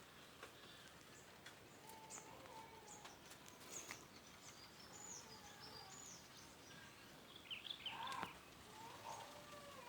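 Faint birds chirping over soft outdoor background noise, with scattered short high calls and a louder cluster of chirps about eight seconds in.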